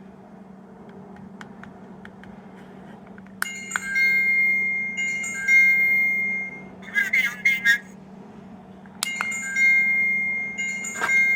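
Electronic chime tune from a small sound-making capsule toy's speaker, starting suddenly about a third of the way in. It is followed by a short warbling electronic sound, and the tune starts again near the end. Before the tune there is only a low steady hum and a few faint clicks.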